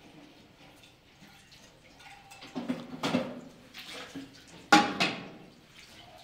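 Dishes being rinsed at a stainless-steel sink: water splashes over a plate into the sink, with louder bursts of splashing and clatter about two and a half seconds in and, loudest, near five seconds in.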